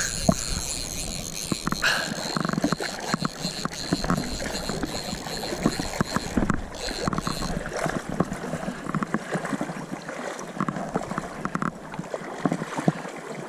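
River water rushing and splashing close to the microphone, with many small knocks and clicks, while a hooked trout is being fought. A thin steady high whine runs through the first half and stops about six and a half seconds in.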